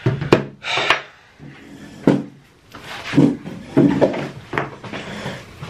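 Irregular knocks and scraping from a chair and table as someone sits down, with one sharp knock about two seconds in.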